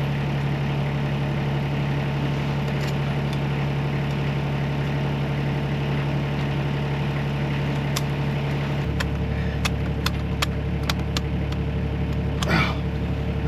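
An engine idling steadily, its low note shifting slightly about two-thirds of the way through. Over it, in the second half, come a series of sharp metallic clicks and clinks, as of a filter wrench being worked on a tractor's fuel filters, and a brief scrape near the end.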